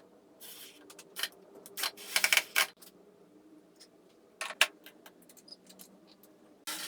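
Irregular clicks, knocks and short rattles of small hard objects being handled, over a steady low hum.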